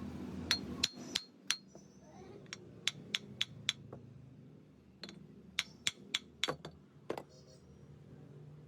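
Sharp metallic taps and clinks, about sixteen in irregular bunches, each with a short ring: metal tools striking steel parts while a monoblock pump motor is taken apart for a bearing change.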